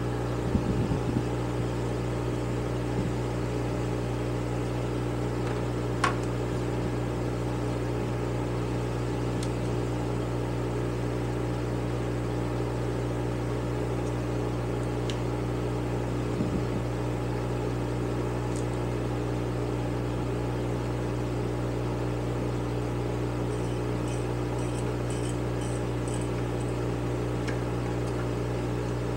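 Steady electric hum of a running fan motor, with a few light knocks and one sharp click from metal carburettor parts and tools handled on the bench.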